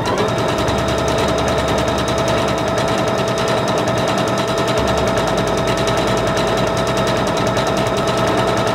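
Singer Confidence 7640 computerized sewing machine running at a steady speed while sewing a decorative stitch, the needle going in a fast, even ticking rhythm over a steady motor hum.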